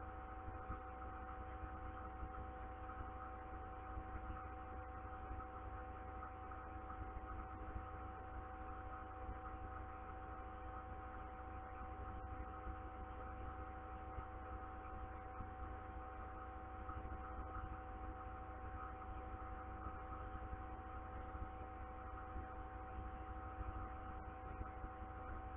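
Steady electrical hum: several held tones over a low rumble, unchanging.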